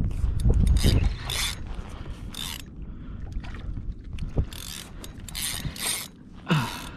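A large saltwater spinning reel being cranked in short bursts while fighting a fish, its gears whirring with each turn of the handle. A low rumble sits under the first second.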